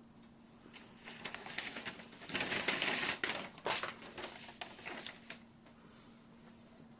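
Crinkling and rustling of something being handled, with many small clicks, loudest between about two and three seconds in and dying away by about five and a half seconds.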